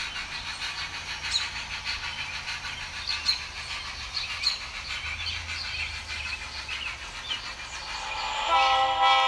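N-scale model freight train rolling along the layout track, its small wheels clicking irregularly over the rail joints over a steady running noise. Near the end a held chord of several steady tones comes in and gets louder.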